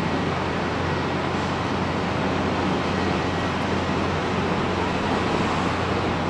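Jet airliner engines running at low taxi thrust: a steady, even rush of noise with a constant low hum underneath.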